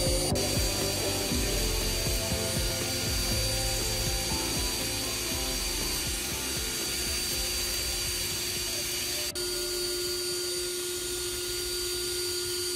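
HiMOKI cordless drill running steadily, spinning a sandpaper-wrapped sharpening rod with a knife blade rubbed against it to sharpen the edge.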